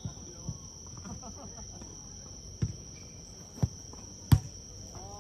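Crickets trilling in one steady high note behind the play. Three sharp thumps of the jokgu ball being struck come about two and a half, three and a half and four and a quarter seconds in, the last the loudest.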